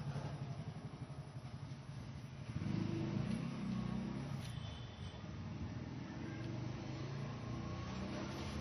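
Faint steady low rumble of background noise, swelling slightly for about a second and a half around three seconds in.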